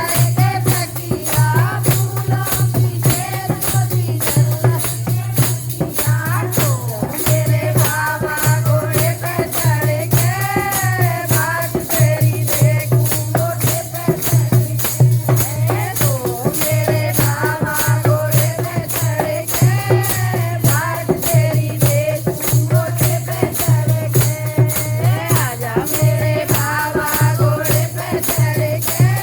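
Hindi devotional song (bhajan): a voice singing a wavering melody over a fast, even percussion beat.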